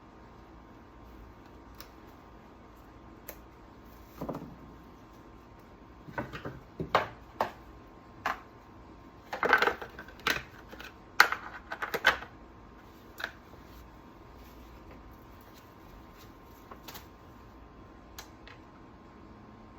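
Chainsaw parts being handled and fitted by hand: scattered clicks, clacks and knocks of hard plastic and metal parts, most of them bunched together about halfway through.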